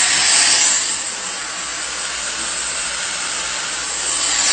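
Dyson cordless stick vacuum running, a steady rushing hiss with a high whine on top. It is loudest at first, drops back about a second in, and rises again near the end.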